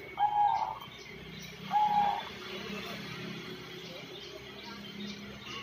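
Zebra dove (perkutut) cooing: two short, level coos about a second and a half apart.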